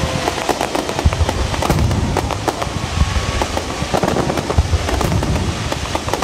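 Fireworks barrage: rapid, overlapping booms of aerial shells with continuous crackling, without a pause.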